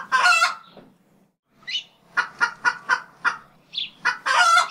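A chicken clucking in short, separate calls: a longer squawk at the start, a quick run of about five clucks in the middle, and another longer squawk near the end.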